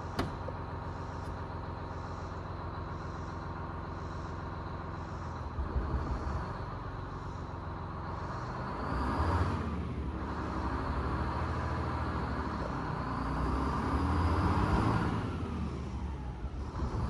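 Detroit Diesel 6-71 two-stroke bus engine running steadily, growing louder twice as the revs come up, about a third of the way in and again near the end.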